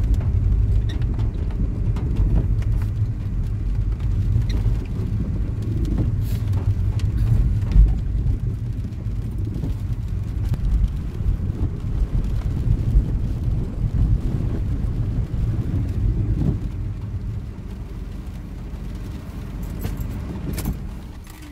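A car driving slowly on a wet, rough lane, heard from inside the cabin: a steady low engine and tyre rumble with a few short clicks and knocks. It grows quieter in the last few seconds.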